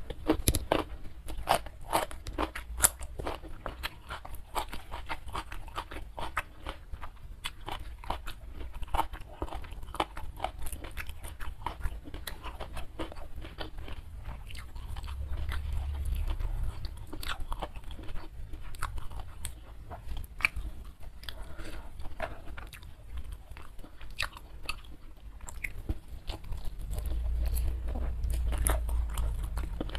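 A person chewing and crunching a mouthful of food close to the microphone, with many sharp crunches and wet mouth clicks. A low rumble swells up around the middle and again near the end.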